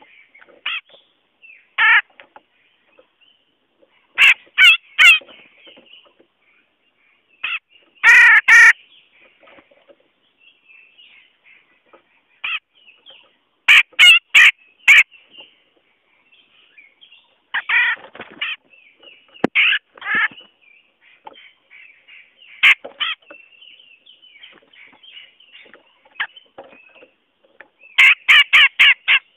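Grey-cheeked bulbul (cucak jenggot) giving loud, harsh, rasping calls in short bursts of one to six quick notes every few seconds, over fainter continuous twittering.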